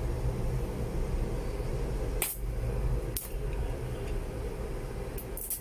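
Steady low hum, with three short sharp clicks about two, three and five seconds in, as a 3.2 mm stick-welding electrode is brought to the steel workpiece just before the arc is struck.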